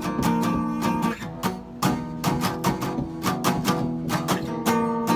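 Guitar strumming power chords in a steady rhythm of quick strokes, changing chord about a second in and again near the end.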